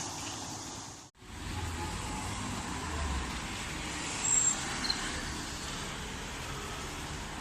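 Steady outdoor road-traffic noise, with a low rumble of a passing vehicle, following a brief dropout about a second in. A short high squeak about four seconds in is the loudest moment.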